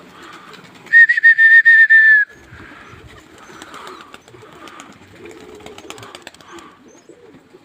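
A loud whistle, one held note with a slight warble lasting just over a second, blown about a second in; afterwards faint pigeon cooing and small clicks and knocks.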